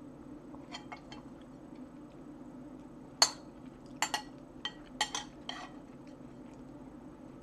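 Metal spoon clinking against a ceramic soup bowl: a few faint taps about a second in, then a series of sharp clinks from about three seconds in.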